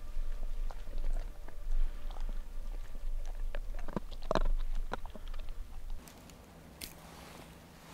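Alaskan Malamute chewing close to the microphone: irregular crunching bites over a low rumble. After about six seconds it gives way to a quieter stretch with a single sharp click.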